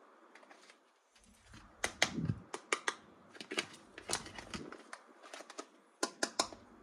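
Irregular sharp clicks and taps of hard plastic toys and packaging being handled, coming in quick clusters about two seconds in, around four seconds in, and near the end.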